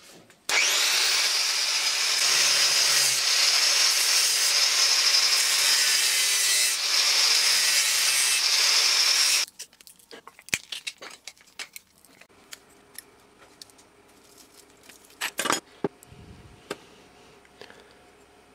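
Angle grinder spinning up with a rising whine and cutting through a metal can clamped in a vise, a loud steady grinding for about nine seconds that stops suddenly. Light clicks and knocks of the cut pieces being handled follow.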